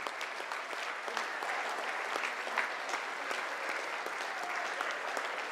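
Large seated audience applauding steadily, a dense patter of many hands clapping.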